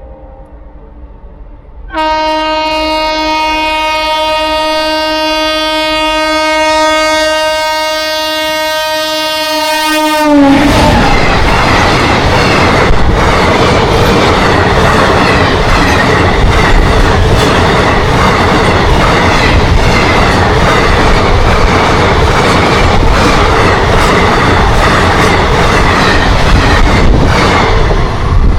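A train horn sounds one long blast of about eight seconds, its pitch dropping as the locomotive goes by. The train then rushes past with a steady rhythmic clatter of wheels over the rail joints.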